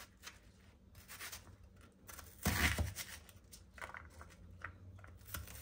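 Ceramic kitchen knife cutting an onion into small pieces on a plastic cutting board: quiet slicing with soft knocks of the blade on the board, a louder knock about halfway through, then a run of quick small cuts.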